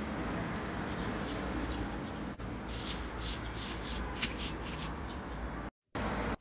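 Sheets of coloured metallic foil being crushed in a glass bowl, first pressed with a potato masher, then crumpled by hand with a run of sharp, crisp crinkles in the middle. The sound cuts out briefly near the end.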